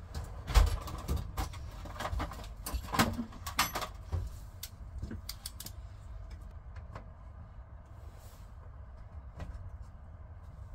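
A run of sharp clicks and knocks, dense for the first few seconds and then only occasional, over a steady low rumble: parts and tools being handled during work inside a van.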